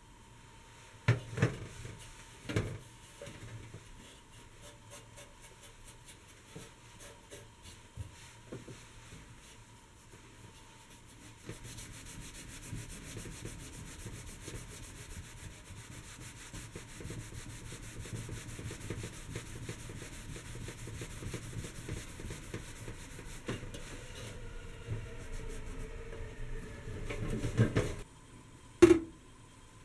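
Cloth rubbing polish over the thin riveted copper panels of an antique kandouko sake warmer, a steady scrubbing that starts about a third of the way in and runs until near the end. There are two knocks in the first few seconds and one sharp, louder knock near the end.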